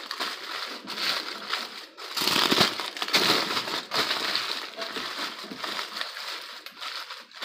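Aluminium foil crinkling and crumpling as hands crush and crimp it tight over a cast-iron skillet, an uneven rustle that is loudest a couple of seconds in.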